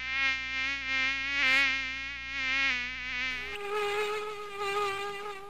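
Cartoon mosquito buzzing: a whining drone with a slightly wavering pitch, which switches to a higher, thinner whine about three and a half seconds in.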